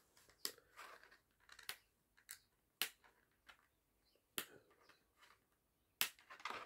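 Thin plastic deli cup stuffed with paper towel crackling and clicking as it is gripped and tilted by hand. About eight short, sharp crackles come irregularly, the loudest a little before halfway and near the end.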